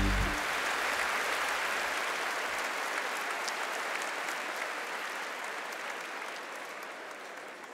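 Large audience applauding, the clapping slowly fading away. A band's music cuts off just at the start.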